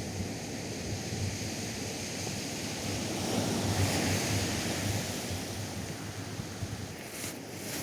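Atlantic surf washing onto a sandy beach, swelling to a peak about halfway through, with wind buffeting the microphone.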